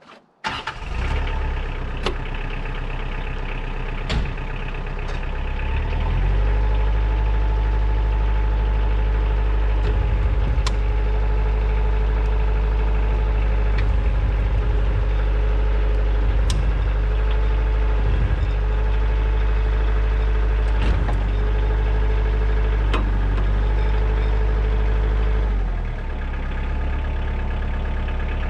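Kioti DK40se compact tractor's diesel engine starting and running. About six seconds in it runs louder with a steady whine over the engine, then drops back to a lower idle near the end.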